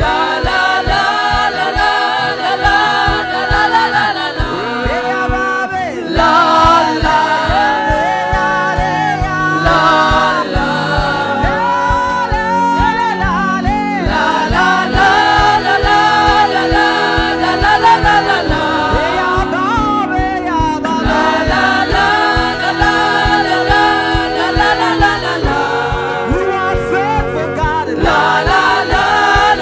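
Gospel worship song: voices singing together with a choir over accompaniment with a steady beat.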